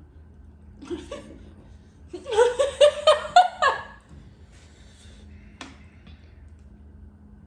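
A person laughing: a burst of about six quick pulses a couple of seconds in, with a sharp click a few seconds later.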